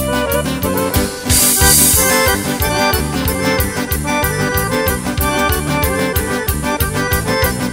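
Live folk band playing an instrumental passage of a drmeš: accordion and electronic keyboard melody over guitars and a steady drum beat. A cymbal crash comes about a second and a half in.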